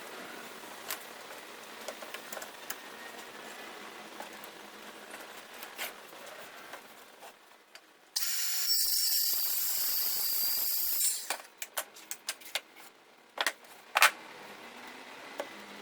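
Workshop sounds: a steady hiss lasting about three seconds midway, followed by a series of sharp clicks and knocks.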